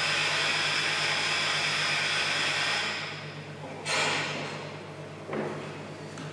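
Small electric motor of a single-motor modular appliance prototype running with a steady hissing whir, cutting off about three seconds in. Two brief bursts of similar noise follow, about a second and a half apart.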